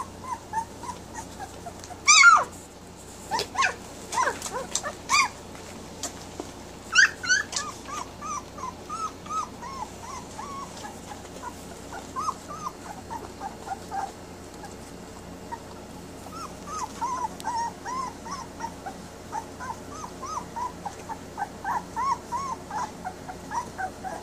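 Newborn puppies whimpering and squeaking, newly woken and crying for their mother: many short high cries, with a few louder yelps about two to seven seconds in.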